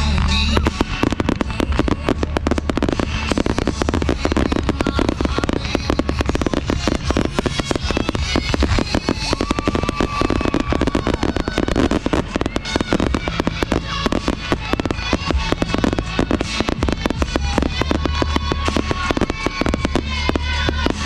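Fireworks barrage: many aerial shells, comets and ground fountains going off at once in a dense, continuous run of bangs and crackles, with music playing over it.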